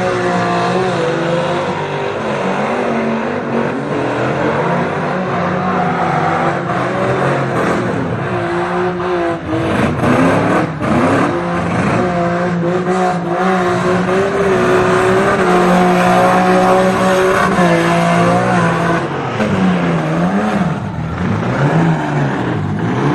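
Car engine revving up and down, its pitch repeatedly rising and falling, with tyre squeal over a steady rush of noise.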